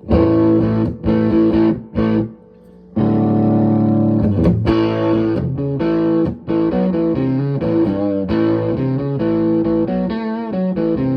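Electric guitar played through a DIY fuzz pedal into a Fender Super Champ amp, with the fuzz at about halfway and the pedal's bass and mid boost switches both on. A few short distorted chord stabs with brief breaks, then continuous chordal riffing with changing notes.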